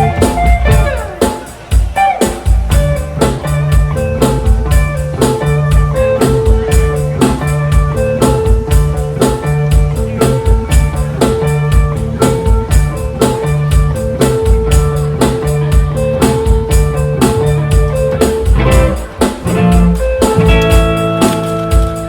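Live blues-rock band playing an instrumental passage: electric guitar over bass and a steady drum-kit beat, with one note held through much of it. Near the end the band closes on a held final chord.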